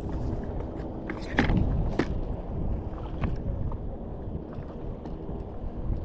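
Wind rumbling on the microphone and water moving around a fishing paddleboard at sea, with a few short sharp knocks about a second in, at two seconds and near the middle.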